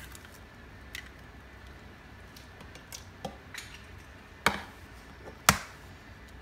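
An egg knocked against the rim of a bowl to crack it: two sharp knocks about a second apart near the end, after a few lighter clicks of eggshell being handled.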